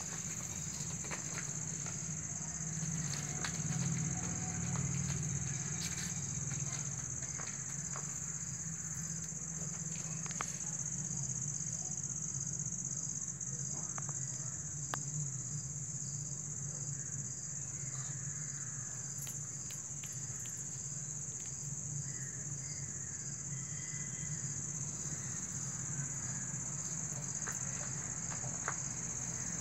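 Night insects chirring in a continuous, steady high-pitched drone, with a low hum underneath and scattered faint taps and rustles.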